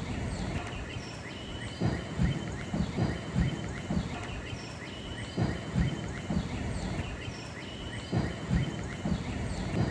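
Outdoor ambience: many birds chirping in short calls, under irregular low rumbles of wind buffeting the microphone.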